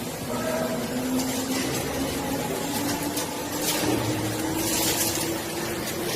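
Doosan VTR-1216 vertical turning center's table spindle speeding up, its motor whine rising slowly and steadily in pitch as it climbs toward a higher set speed, likely the 150 rpm just called. Two short bursts of hiss come about halfway through.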